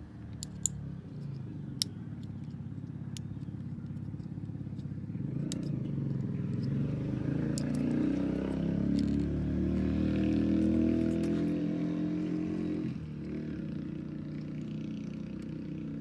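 A motor vehicle's engine running, growing louder through the middle and dropping away abruptly near the end. A few light clicks come early on from a small screwdriver working the terminal clips in a plastic ignition coil connector.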